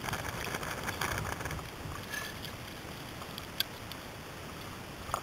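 Small waves lapping against the side of a small boat's hull, a soft crackly wash, with one sharp click a little past halfway.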